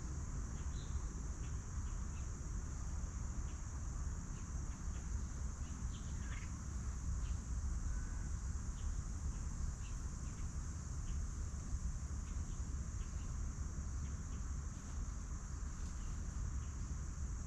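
Outdoor farmyard ambience: a steady, high-pitched insect drone over a low wind rumble on the microphone, with scattered faint ticks and short chirps from birds and foraging chickens.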